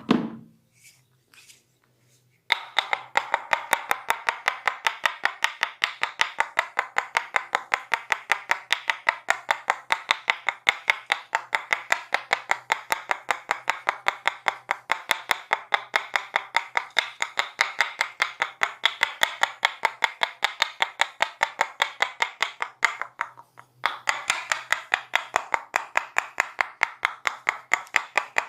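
Fast, even massage percussion: hands striking the body in quick chopping strokes, about four to five a second. It starts a couple of seconds in and pauses briefly near the end before picking up again.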